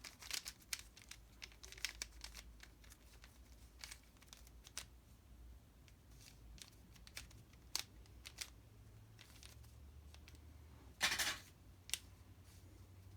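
Plastic puzzle cube being turned by hand: irregular clicks and clacks of its layers turning, with a longer, louder rattle of quick turns about eleven seconds in.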